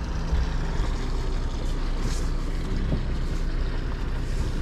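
Twin engines of a 60-foot motor yacht idling, a steady low rumble.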